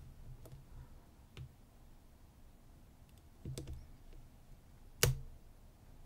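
Small metallic clicks of a hook pick working the pin stacks inside a Yale P310/72 padlock under tension, a few faint ones and one sharper click about five seconds in.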